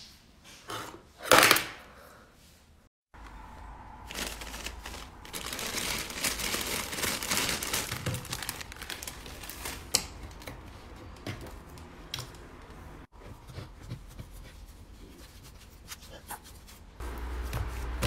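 Hands squeezing, poking and kneading slime, making crackly, clicking squelches. There is one sharp, loud pop about a second and a half in. In the middle part, pink kinetic sand is pressed into blue slime with a dense crackle.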